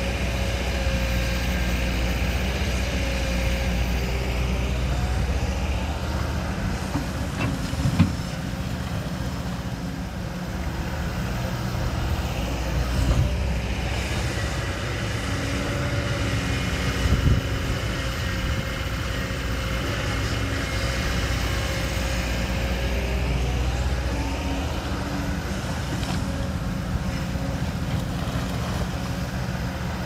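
Heavy diesel construction machinery running steadily, its engine note shifting and rising a couple of times as it is worked, with two sharp knocks about 8 and 17 seconds in.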